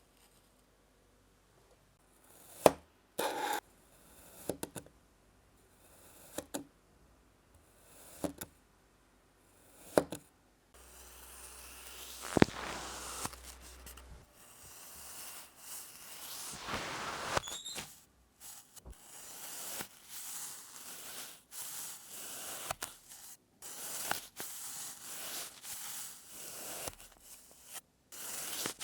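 A blade cutting through kinetic sand: single crisp cuts every second or two at first, then from about a third of the way in, continuous scraping and crumbling with many small clicks.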